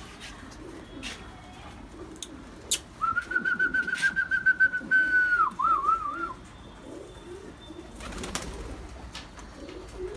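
Domestic pigeons cooing in a loft, with low burbling calls throughout. About three seconds in, a loud, high, trilling whistle sounds over them for around three seconds and ends in a few wavering notes.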